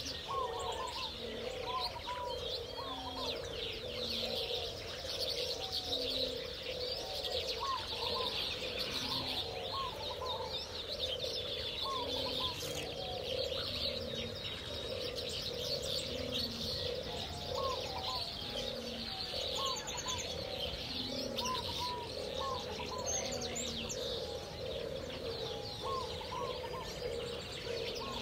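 Aviary bird chorus: doves cooing over and over under a steady mass of high chirping from many small birds.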